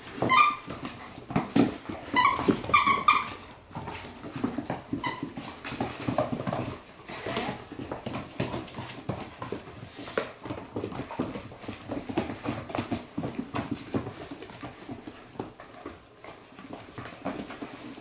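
Young Labradoodle puppies playing: several short, high yips near the start, a cluster about two to three seconds in and one more about five seconds in, over continual scuffling and clicking of paws and claws on a hard floor and a fleece blanket.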